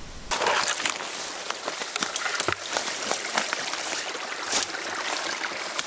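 Footsteps through dry grass and brush: continuous rustling of dry leaves with many small, irregular crackles of twigs, starting abruptly a moment in.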